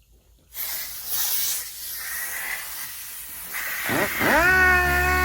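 A rough hiss of work on the headlight, then a handheld electric power tool starts about four seconds in, its motor whining up quickly to a steady speed and running evenly.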